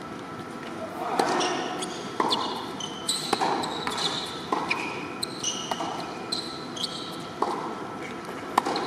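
Tennis rally on an indoor hard court: racket strikes and ball bounces about once a second, with short, high sneaker squeaks on the court between shots.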